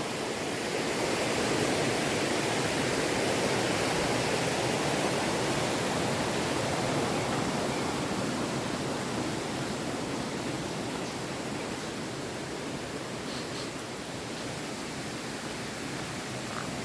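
Mountain river rushing over rocks and small rapids: a steady rush of water that swells a little, then eases slightly.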